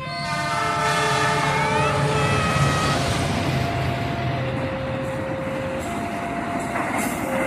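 Passenger train passing: the diesel locomotive's horn sounds a multi-tone chord for about the first three seconds over the rumble of the train, which runs on as the coaches go by. A two-tone level-crossing warning alarm alternates between a higher and a lower note every second or so.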